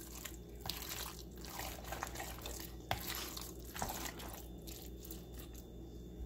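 Faint wet squelching of a hand squeezing and mixing raw boneless chicken pieces in a thick egg-and-flour marinade in a bowl, with two light clicks near the middle.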